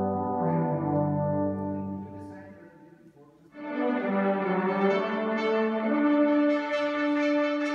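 Brass ensemble of trumpets, French horns, trombones and tubas playing long held chords. The sound dies away about three seconds in, and a fuller brass ensemble passage starts half a second later.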